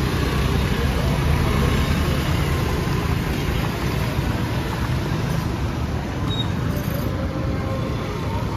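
Busy city street ambience: a steady rumble of road traffic close by, with faint indistinct voices of people around.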